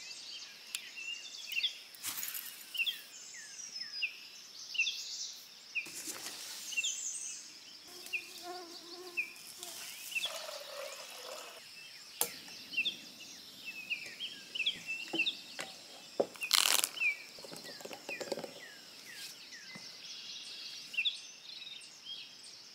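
Several birds calling with many short, repeated chirps, over a steady high whine, with a few brief knocks.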